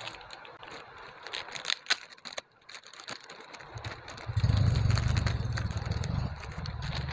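Plastic packaging crinkling and rustling, with clicks and scrapes, as a wireless bodypack transmitter is pulled out of its bag. About four seconds in a low, steady rumble starts and runs on under the handling.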